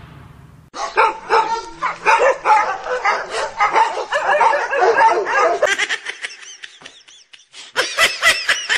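Dog yapping and yipping: a dense run of short, quick calls starting about a second in, thinning out, then a few sharper high yelps near the end.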